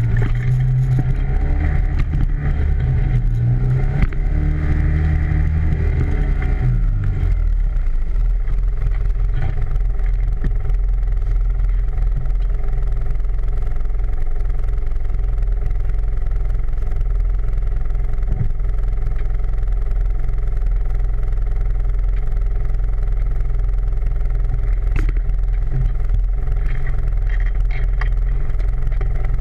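ATV engine running, its pitch rising and falling over the first seven seconds, then holding steady.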